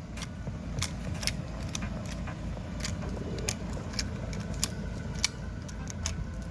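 Irregular sharp metallic clicks and clinks, a few a second, from handling a seized Beretta pistol and its ammunition, over a low steady rumble.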